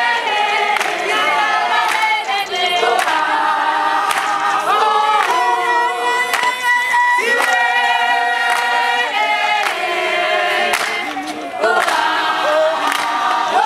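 A group of students singing together in harmony, unaccompanied, with held notes that change together.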